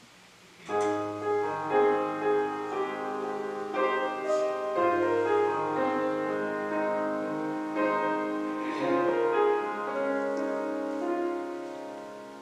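Slow piano music starts about a second in: sustained chords under a simple melody, fading gradually near the end.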